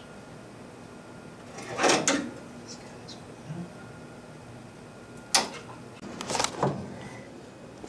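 A few scattered knocks and clunks from hand tools on metal parts in an engine bay, the loudest about two seconds in, then handling noise as the camera is picked up and moved near the end.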